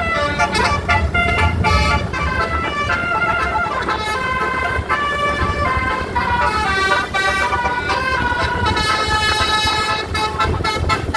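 Telolet horn, a set of multi-note air horns, playing a quick tune of changing notes over the low rumble of a large vehicle.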